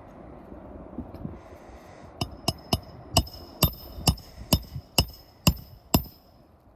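Hammer nailing down a roofing shingle: about ten sharp strikes, roughly two a second, each with a metallic ring, starting about two seconds in.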